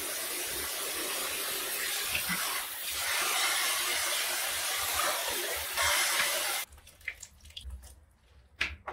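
Tap water spraying into a basin of water as salted napa cabbage is rinsed by hand. The running water cuts off abruptly about two-thirds of the way through, leaving a few soft wet squishes as the cabbage is squeezed out.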